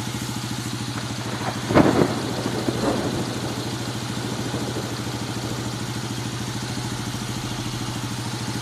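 Kawasaki KFX90 ATV's small single-cylinder four-stroke engine idling with an even, steady pulse, with two brief louder sounds about two and three seconds in.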